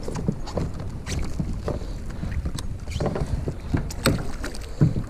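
Wind rumbling on the microphone, with scattered light clicks and knocks from rod, reel and gear being handled on a plastic fishing kayak.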